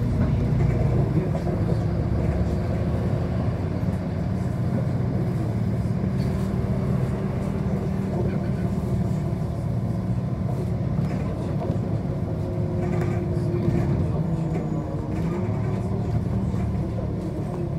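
City bus under way, heard from inside: a steady low drivetrain hum with a whine that shifts in pitch a few seconds before the end as the bus changes speed.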